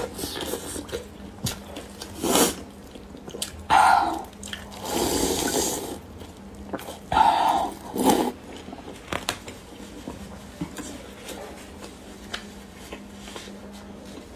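Close-up eating sounds of noodles in soup: wet slurps and sips of broth with chewing, a few short loud ones and one longer slurp about a third of the way in.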